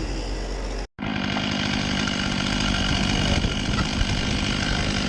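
Chainsaw running steadily at high speed, after a brief dropout about a second in.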